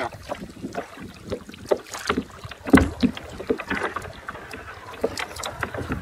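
Hull of a Cool Kayaks Conger one-person kayak scraping and ticking over reed stalks as it glides straight over them without getting stuck. The scrapes and ticks are irregular, with one louder knock a little under three seconds in.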